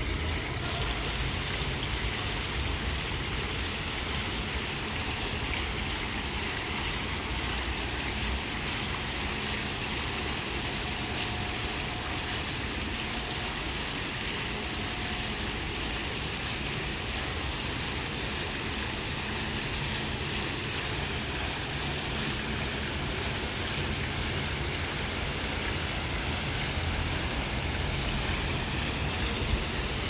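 Plaza fountain running: water jets splashing and water pouring from the raised central bowl into the surrounding pool, a steady rushing with a low rumble underneath.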